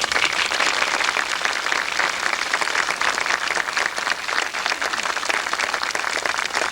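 Audience applauding: many hands clapping together, starting suddenly and fading out near the end.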